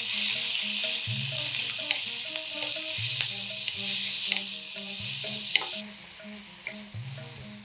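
Sliced onions and dried red chillies sizzling in hot oil in a kadai, stirred with a wooden spatula that taps and scrapes the pan now and then; they are being fried until the onion loses its rawness. The sizzle drops sharply to a softer level about six seconds in.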